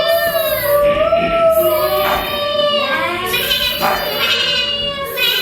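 Children's voices imitating morning village sounds: long held calls that slide in pitch, with several voices overlapping in the second half.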